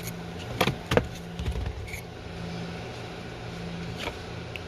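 A few sharp plastic clicks and knocks as a cabin air filter is slid and pushed into its housing behind a car's glove box, over a steady low hum.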